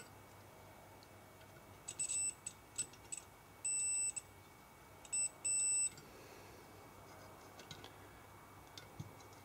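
A digital multimeter's continuity buzzer beeps about seven times, some beeps brief and some about half a second long, between about two and six seconds in, as the test probes touch the stator winding leads of a BMW 180 A alternator. Each beep marks a connection between the windings. Light clicks of the probes follow.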